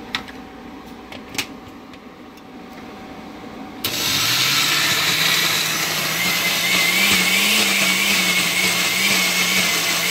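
A few light clicks, then about four seconds in a countertop blender switches on. Its motor whine climbs in pitch as it spins up, then wavers up and down as it churns a thick paste of soaked raw pepitas (hulled pumpkin seeds) and tomatoes, too thick to blend smoothly without extra water.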